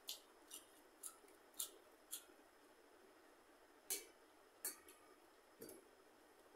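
Close-up eating sounds from someone eating rice and curry by hand: about eight short, crisp clicks and smacks of chewing, irregularly spaced, the loudest at about four seconds.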